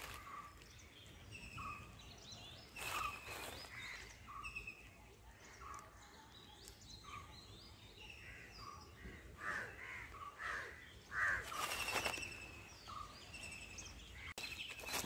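Several birds calling with short chirps and trills, and a few steps crunching on dry leaf litter, the loudest about 3 seconds in and around 12 seconds.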